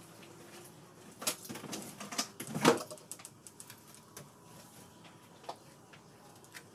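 A quick run of clicks and knocks from small objects being handled and set down close to the microphone, the loudest about two and a half seconds in, followed by a few faint isolated clicks.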